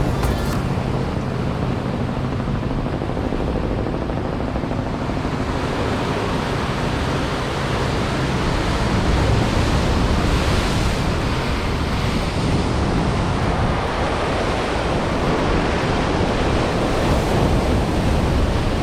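Waves washing and surging against rocks, a steady noisy wash, with wind buffeting the microphone.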